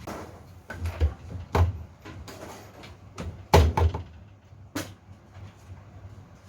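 About five knocks and bangs, like a door or lid being opened and shut, the loudest about three and a half seconds in, over a low steady hum.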